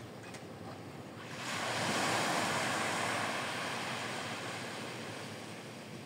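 A small wave breaking on a sandy beach and washing up the shore: the rush swells about a second and a half in, then fades slowly.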